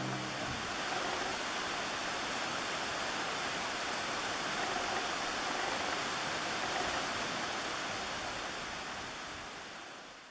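Steady, even rushing noise with no distinct calls, fading out near the end.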